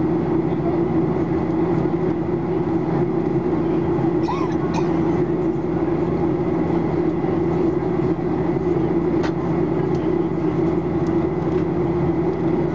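Steady cabin noise of a Boeing 737-800 in flight, heard from a window seat: the constant drone of its CFM56-7B turbofan engines and the airflow over the fuselage.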